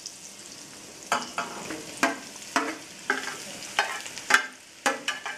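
Sliced leeks going into a stainless saucepan of melted butter and sizzling gently as they start to sweat, while a spatula scrapes and knocks against the metal tray and pan in a run of sharp strokes about twice a second.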